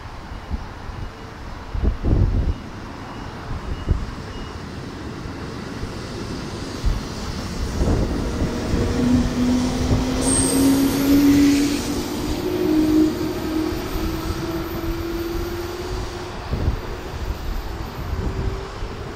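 JR Central 313-series electric train accelerating, its traction motors whining steadily up in pitch over the rumble of wheels on rail, with a few low knocks early on.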